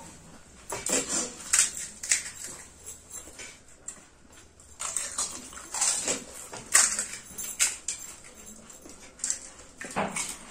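Fuchka being eaten fast: short crunches of the crisp puri shells and wet slurps of the filling and spiced water, in irregular bursts a second or so apart.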